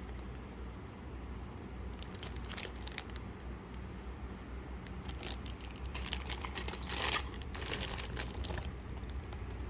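Packaging being handled and opened by hand: crinkling and rustling that comes in spells, busiest and loudest in the second half.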